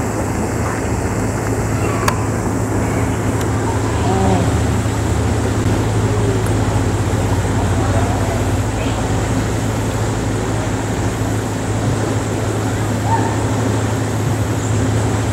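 Steady low hum of outdoor background noise, with faint distant voices.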